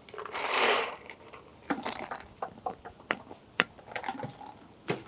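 Paintballs poured into a paintball hopper: a short rattling rush about half a second in, followed by scattered clicks and knocks of handling the hopper and marker.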